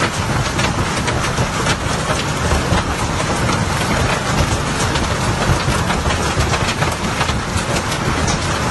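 Hailstorm in full force: a dense, steady clatter of many hailstones striking the ground, with countless sharp knocks over a constant hiss of falling ice and rain.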